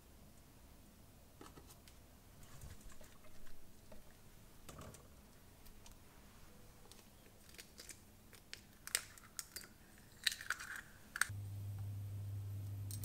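Faint kitchen handling sounds: light clicks and taps as a stainless mesh strainer is picked up and moved, with a cluster of sharper clicks in the second half. Near the end a steady low hum starts.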